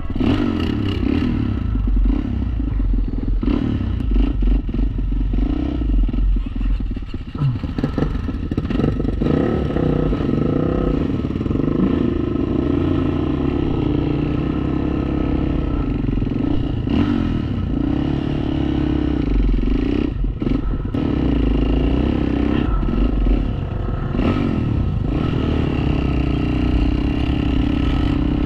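ATV engine running under load with the revs rising and falling, with a few knocks and rattles along the way.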